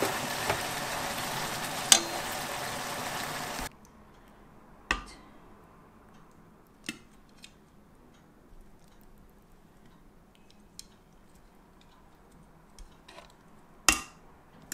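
Soy-sauce chicken braise sizzling in a frying pan, with a sharp clack of chopsticks on the pan, cutting off suddenly after about four seconds. Then a few separate sharp clinks of metal tongs on a ceramic plate and the pan as the chicken is served, the loudest near the end.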